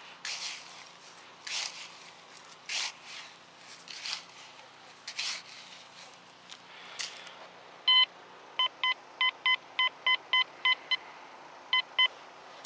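Sand being dug and flung with a hand scoop, one swish about every second. This is followed by a string of about a dozen short, same-pitched beeps from a Quest Q20 metal detector as its coil passes back over the hole. The beeps are the signal of a target still lying deep in the sand.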